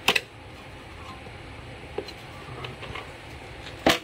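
Air cleaner cover and filter being handled and set aside: a sharp knock at the start, a faint tap about two seconds in, and a louder knock near the end.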